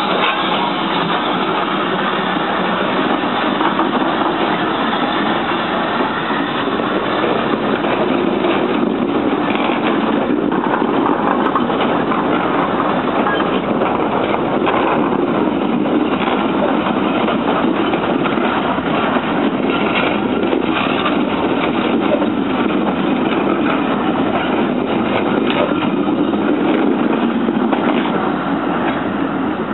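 Steam train passing on the rails: GWR 0-6-2 tank engine 5643 pulls away and its coaches roll past, a loud, steady noise without a break.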